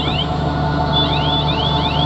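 Tractor engine and Omas California feed mixer wagon running steadily, a low drone with a steady whine over it. From about halfway in, a squeaky rising chirp repeats about three times a second.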